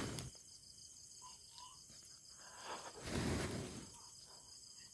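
Steady chirring of night insects, with a short, soft rushing noise about three seconds in.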